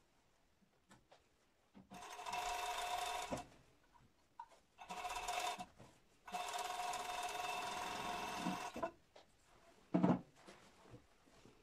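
Industrial overlock machine running in three bursts as it stitches a gathered seam; the longest burst lasts about two and a half seconds. A single thump comes about ten seconds in.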